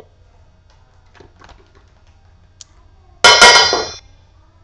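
Stainless steel dog bowl struck twice in quick succession about three seconds in, clanging and then ringing out for most of a second.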